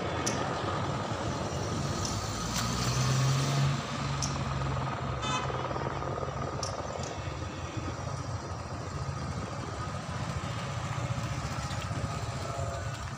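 Road traffic outdoors: steady vehicle engine and road noise, with one engine growing louder about three seconds in, under a thin steady whine.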